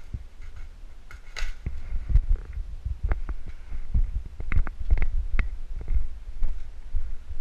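Footsteps and jostling gear picked up through a body-worn GoPro Hero 3: irregular low thuds, with a brief rustle about a second and a half in and a run of sharp clicks and knocks in the middle.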